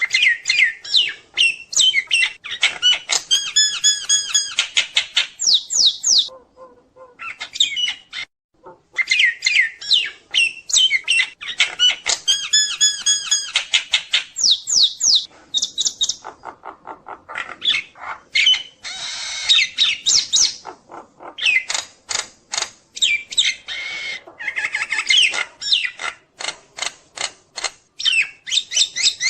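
Jalak nias myna in full song: long, busy runs of rapid sharp notes, clear whistles and harsh squawks, with short pauses about six and sixteen seconds in.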